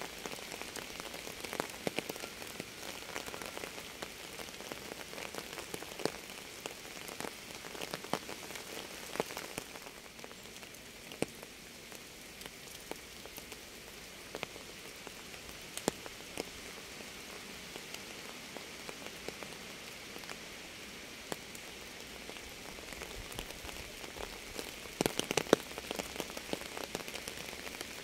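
Rain falling steadily: a soft hiss with separate drops heard as sharp ticks. A quick run of louder drips comes near the end.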